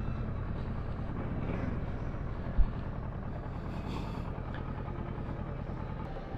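Kawasaki Versys 650's parallel-twin engine running steadily, with a single short low thump about two and a half seconds in.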